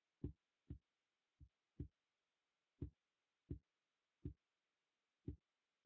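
Soft, short thumps of taps on a computer, about nine at uneven spacing, with dead silence between them: the presenter clicking through her slides.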